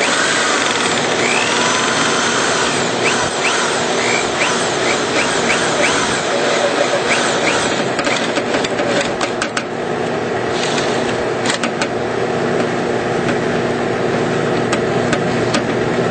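Power drill running a 1/4-inch bit into the top of an exhaust fan's housing, with short squealing sounds from the bit in the first few seconds and a run of sharp clicks and knocks about halfway through, over a steady background noise.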